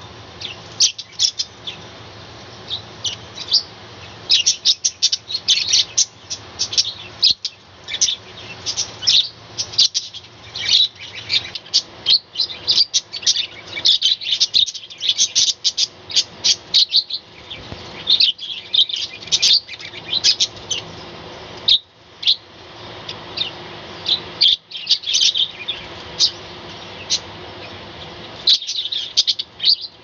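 A flock of budgerigars chattering and chirping: fast, overlapping high chirps in dense bursts with brief lulls.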